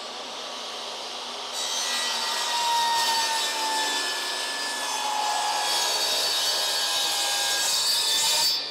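Table saw running, its blade cutting through a board of Trex composite decking from about a second and a half in. The cutting noise stops abruptly near the end.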